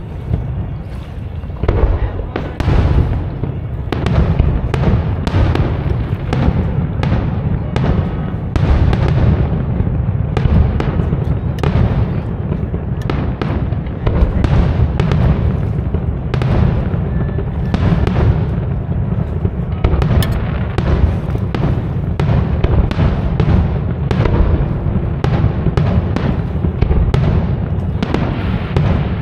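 Aerial fireworks shells bursting in quick, irregular succession, often several a second. The booms overlap over a continuous low rumble.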